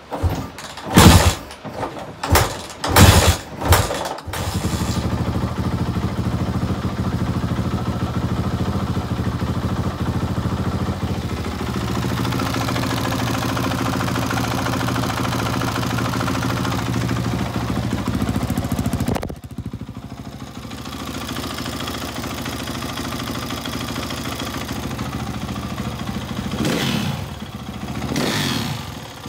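A 2016 Kawasaki KX450F's single-cylinder four-stroke engine fires with a few sharp bursts of throttle, then runs steadily. The sound drops abruptly about two-thirds through, and the engine is revved briefly a couple of times near the end. Its owner-mechanic calls the motor really not right, with the valves chattering, and takes it for valves badly in need of adjustment and a top end short of lubrication.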